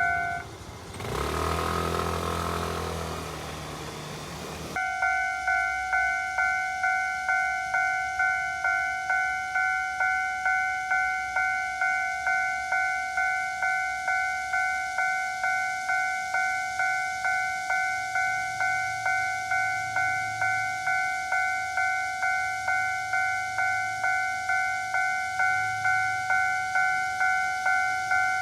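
Level crossing warning bell ringing, a steady electronic ding repeating about one and a half times a second. Near the start it is cut for about four seconds by a rumbling vehicle sound with low held tones, then the bell carries on.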